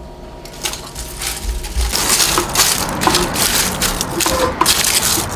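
Dried onion and garlic skins, dried green-onion roots and other dried vegetables crackling and rustling as a hand presses them down into a pot. There are many irregular dry crackles, starting about half a second in.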